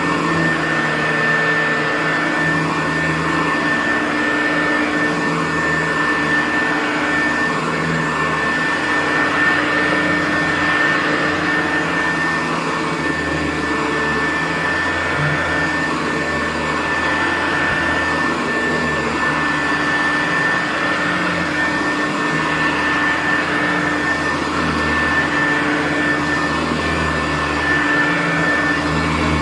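Hoover U4007 upright vacuum cleaner running steadily on carpet on its normal setting, with its commercial four-row brushroll turning. There is a constant high whine over the motor, and the level rises and falls slightly as the machine is pushed back and forth.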